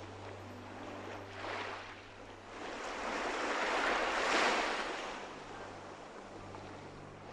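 Ocean surf washing in: a noisy rush that swells to its loudest about four seconds in and ebbs away again, over a faint low steady hum.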